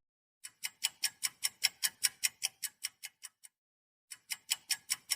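Ticking clock sound effect: quick, even ticks at about five a second in two runs that each swell and fade, with a gap of about half a second just past the middle.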